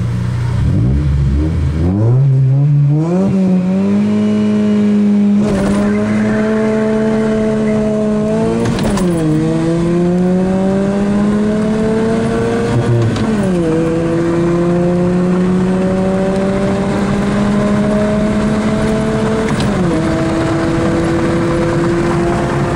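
Car engine accelerating hard from a standing start in a drag race, heard from inside the cabin. It revs up at the launch about a second in, then climbs steadily through the gears, its pitch dropping at each upshift, clearly three times.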